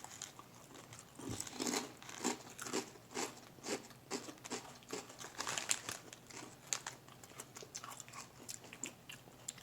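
Someone chewing a crunchy, savory rice-based snack: an irregular run of crisp crunches, a few a second.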